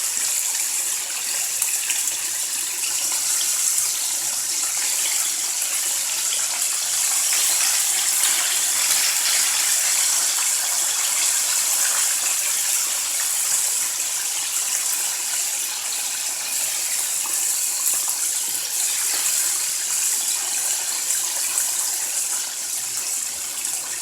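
Chicken wings deep-frying in hot oil: a steady, even sizzle.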